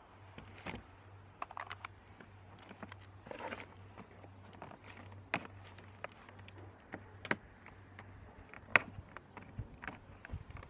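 Irregular light clicks and knocks of hands and tools working on parts inside a car door with its trim panel off, with one sharper knock near the end, over a faint steady low hum.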